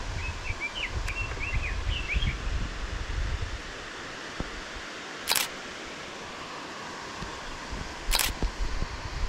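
Two short bursts of a camera shutter firing, about three seconds apart. Faint bird chirps come in the first couple of seconds, over a steady outdoor hiss.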